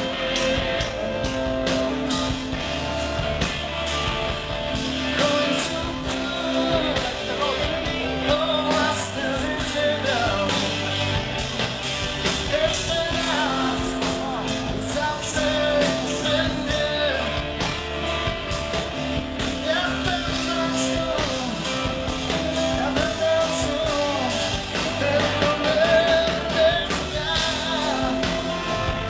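Live blues-rock band playing at full volume, with electric guitars over bass and drums, recorded from within the crowd.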